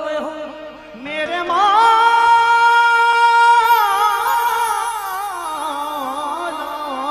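Qawwali singing with musical accompaniment: after a brief dip, the voice glides upward about a second in and holds a long note, then carries on in wavering, ornamented melodic lines.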